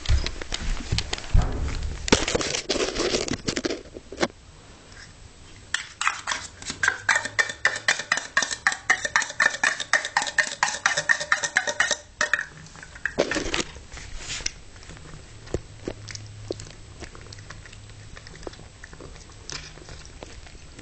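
A cat eating from its food dish: chewing with clicks against the dish, including a fast, even run of clicks lasting about six seconds in the middle.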